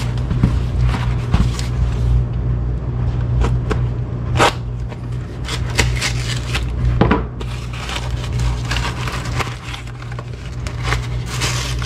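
A cardboard shipping box being cut open with a folding utility knife and its flaps pulled apart: scattered sharp clicks and scrapes, then crinkling of cardboard and packing paper in the last few seconds, over a steady low hum.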